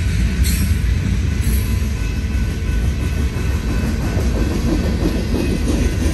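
Railway train passing, a steady rumble of wheels on the rails.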